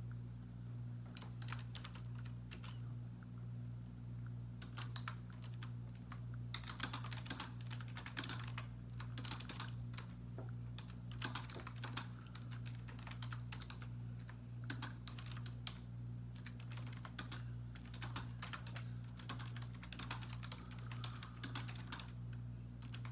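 Typing on a computer keyboard in bursts of quick keystrokes separated by short pauses, over a steady low hum.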